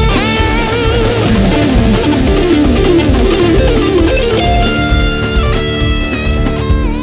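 Carimbó music playing: a guitar melody with bending notes over a steady, driving beat.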